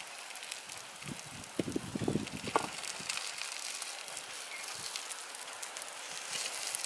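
Fish fillets and baby corn sizzling in a steel frying pan over a wood fire, a steady hiss with fine crackling. About two seconds in there is a brief clatter of the spatula and fork against the pan.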